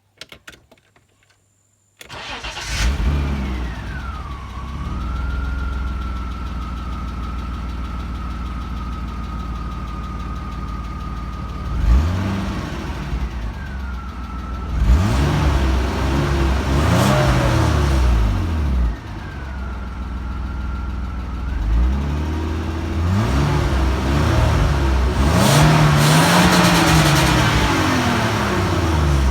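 BMW E34 525i's M50B25 2.5-litre straight-six with VANOS starting about two seconds in and settling to idle. It is then revved several times, the pitch rising and falling, with the knock of a hydraulic lifter.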